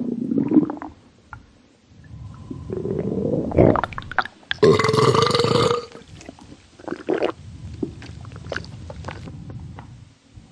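Human burps with gurgling, rumbling stomach sounds. One long burp about halfway through is the loudest. Short gurgles and pops follow it.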